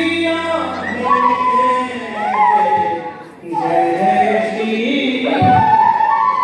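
A group of voices singing a devotional garba song together, with long held notes and a brief dip about three seconds in.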